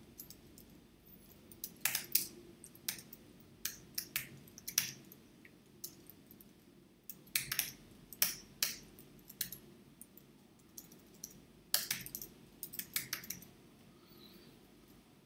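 Computer keyboard keystrokes: typing in irregular clusters of clicks with pauses between, as a sentence is typed and a misspelled word corrected. The clicks fall quiet near the end.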